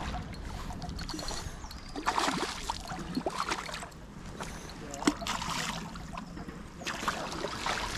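Water splashing in three irregular bursts over a steady outdoor background.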